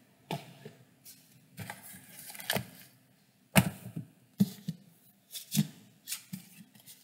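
Books being handled close to the microphone: a string of sharp knocks and scrapes as they are moved, the loudest knock about three and a half seconds in.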